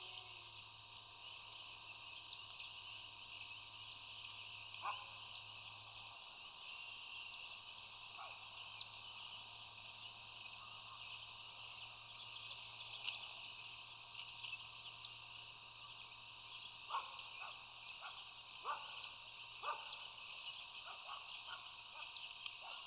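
A steady, high-pitched chorus of frogs calling in the background, dense and unbroken. A few short, lower, sharper calls stand out over it, most of them in the last third.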